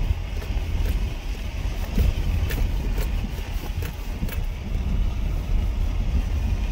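A vehicle driving along, with a steady low rumble of road and wind noise and scattered light ticks.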